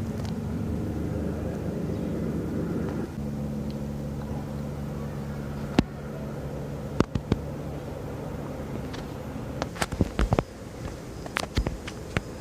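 NPAS police Airbus EC145 helicopter circling, a steady drone with a low hum. Several sharp clicks and knocks come in the second half.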